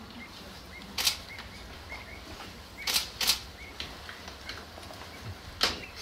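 Four sharp clicks, one about a second in, a close pair around three seconds and one near the end, over a run of faint, short, high chirps.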